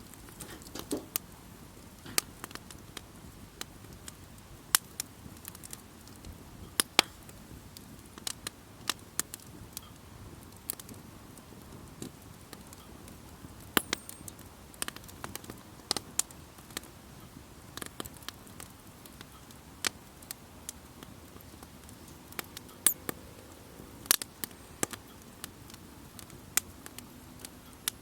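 Wood campfire crackling: irregular sharp pops and snaps, a few at a time, over a soft steady background of the burning fire.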